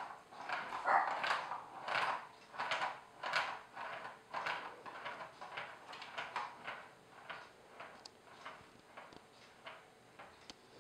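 A ball rolling round the plastic channel of a Catit Senses Speed Circuit cat toy track. It makes a rhythmic rolling rumble that swells each time the ball rounds the track, coming faster and fading as the ball slows.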